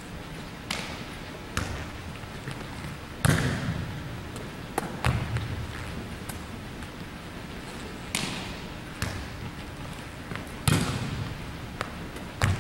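Volleyballs smacked by hand and hitting the hardwood floor of a large gym: about nine sharp slaps with echo, a second or two apart, the loudest about three seconds in and again about eleven seconds in.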